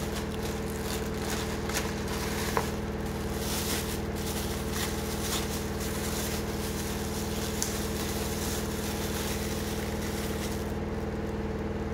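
Thin plastic bagging crinkling and rustling as hands pull a power cord and small accessories out of their wrapping, over a steady low machine-like hum.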